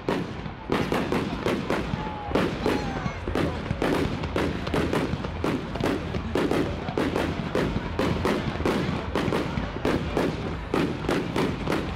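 Aerial fireworks display: shells bursting in a steady, irregular run of bangs and crackles, two or three a second.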